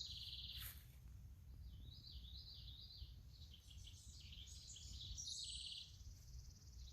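Songbirds singing faintly: a buzzy trill at the start, a run of repeated rising-and-falling notes about two seconds in, and another trill near the end, over a low steady rumble.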